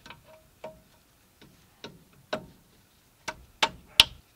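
Metal parts clicking and clinking as a brake caliper is worked by hand over the pads and rotor. There are about seven sharp ticks spaced irregularly, the loudest near the end.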